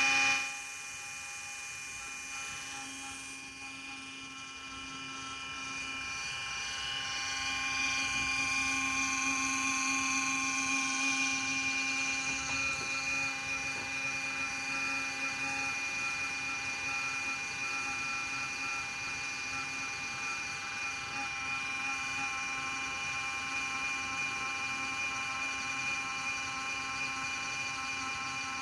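Cooling fan in a Q-See QC808 DVR running with a steady whining hum made of several fixed pitches, the highest the strongest. It drops in level sharply right at the start, then grows louder from about five to eight seconds in and stays there: the intermittent loud fan noise that is the recorder's fault.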